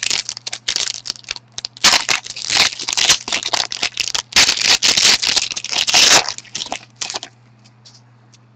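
Trading cards and their foil pack wrapper handled at close range: irregular crinkling and rustling that stops about seven seconds in.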